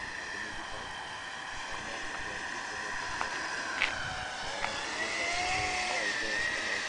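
Vasafan 90 electric ducted fan of an RC jet, driven by a Typhoon 700-68 motor, whining in flight as a steady high tone with overtones. About five seconds in, the whine rises in pitch and grows louder as the jet comes closer, then eases back down. A couple of brief clicks are heard near the middle.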